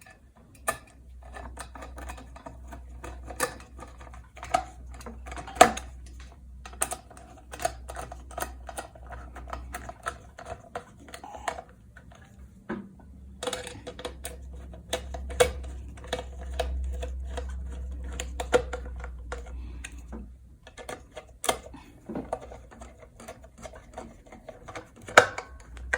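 Irregular clicks, taps and rustling of wires and small plastic parts being handled and tied together while wiring a ceiling fan, over a low steady hum.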